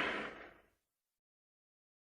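The fading tail of a Gorosaurus kaiju roar sound effect, dying away within about half a second.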